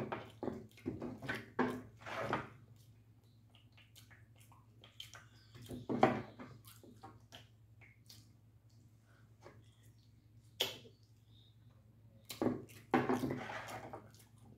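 Close-up mukbang eating sounds: wet smacking and chewing of a sauce-dipped boiled egg, with scattered clicks and scrapes from a wooden spoon and the egg in a glass bowl of sauce. The sounds come in short bursts, the loudest about six seconds in and a longer one near the end, over a steady low hum.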